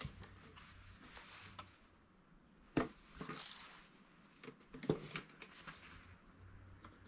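Quiet handling of a tape measure and pencil on a sheet of birch plywood while marking it out, with a few light clicks and knocks, the clearest about three seconds in and again about five seconds in.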